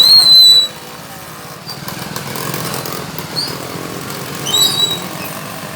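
Street traffic noise with engines running, broken by a loud, short, high-pitched whistle-like tone at the start and a similar, fainter one about four and a half seconds in.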